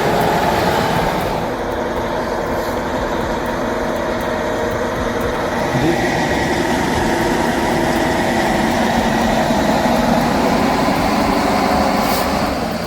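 Engine of a snow-clearing heavy machine running steadily with an even hum.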